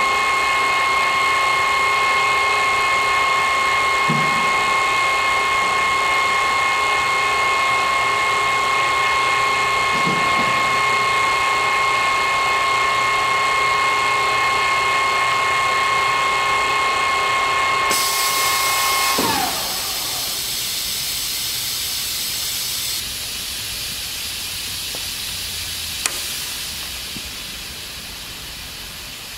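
Wilton 2456 geared-head drill press with a multi-spindle head running, its gearbox giving a steady gear whine. About eighteen seconds in, a pneumatic air hiss starts, and a second later the whine falls in pitch and dies away as the spindle stops. The hiss carries on at a lower level, with a single click near the end.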